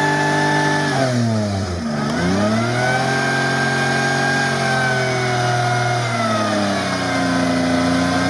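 Toyota 4Runner's engine revving hard as it climbs out of the mud. It drops off the throttle about a second in, revs back up and holds, then eases down near the end.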